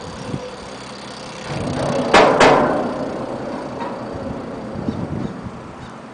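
A vehicle passing by: its noise swells to a peak about two seconds in, with two sharp knocks at the loudest point, then fades away.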